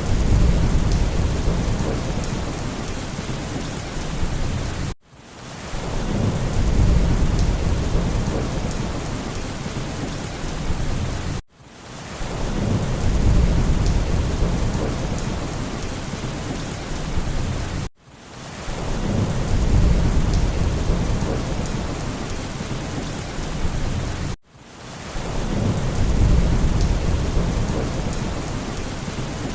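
Heavy rain hissing steadily with a low rumble of thunder that swells and fades. The same short storm recording repeats about every six and a half seconds, each repeat broken off by a brief drop-out.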